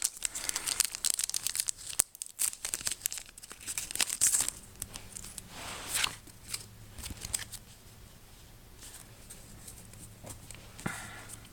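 Foil trading-card booster pack being torn open and crinkled, loudest in the first four or five seconds, then dropping to faint scattered rustles.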